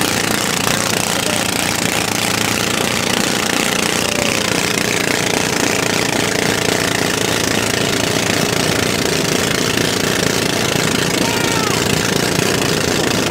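Motorized bangka outrigger boat's engine running flat out, a steady rapid hammering beat, with water and wind rushing past the hull.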